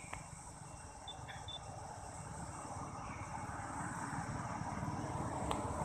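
Low rumble of a motor vehicle approaching, growing steadily louder, over a steady high insect drone. A few short high chirps come about a second in.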